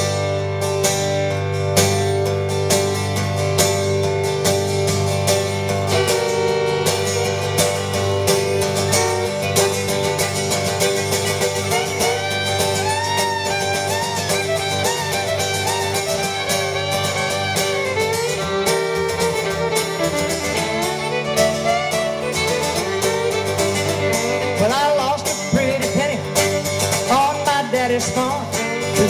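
Acoustic guitar and fiddle playing the opening of a country song in train style, with the fiddle sliding between notes.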